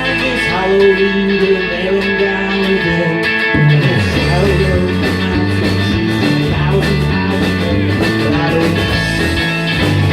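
Live rock band playing a guitar-led song, with a bass line that shifts to new notes about three and a half seconds in.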